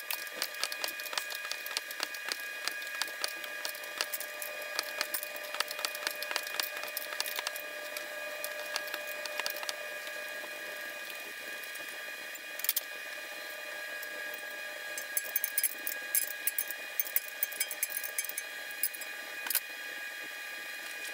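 Hand wrench clicking and metal clinks as a car's front lower control arm is unbolted and worked loose, over a steady high hum. The clicks come in quick irregular runs, with a few louder knocks about halfway through and near the end.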